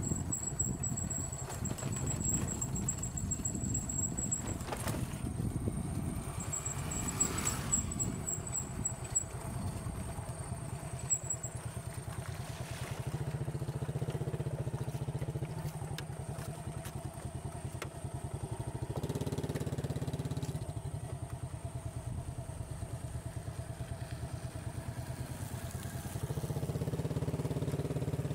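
Small motorcycle engine running as it is ridden along, its note rising three times: about halfway through, briefly a little later, and again near the end.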